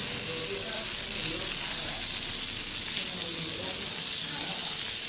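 Coconut-rice batter sizzling steadily in the hot round cells of a cast-iron kanom krok pan, an even frying hiss.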